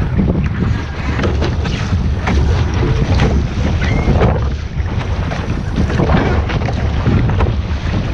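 Wind buffeting the microphone aboard a sailing boat under way, a heavy rumble with many short sharp splashy noises throughout.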